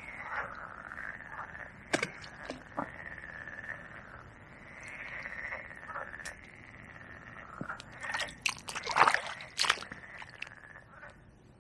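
Frogs calling in a steady, wavering chorus from the lake, overlaid by water splashes at the margin: a couple of sharp splashes about two seconds in and a louder flurry of splashing about eight to ten seconds in.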